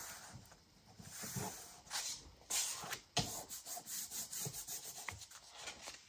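Hands rubbing a glued fabric strip flat onto the edge of a paper page, with the paper shifting and rustling in a series of short swishes and a run of quick small ticks around the middle.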